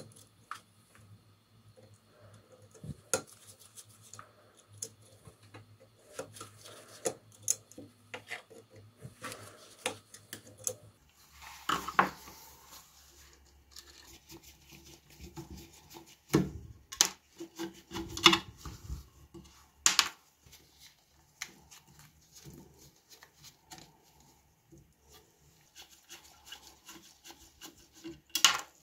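A screwdriver scraping and turning in the small screws of an old Siemens crank telephone's terminal block and metal base plate. Metal parts and wires are handled with irregular clicks and clinks, and there are a few sharper knocks in the middle.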